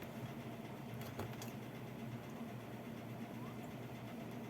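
Steady low electrical hum with a couple of faint clicks from small tools being handled about a second in.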